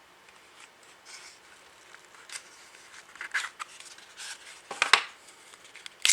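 Hands handling a Zippo lighter: short, irregular rubbing and scraping noises that grow louder, with a sharp click about five seconds in.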